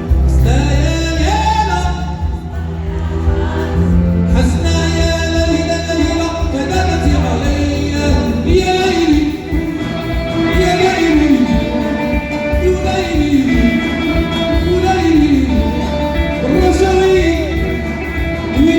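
Hassaniya (Moroccan Saharan) song performed live: a man singing an ornamented, wavering melody over amplified backing music with a heavy bass.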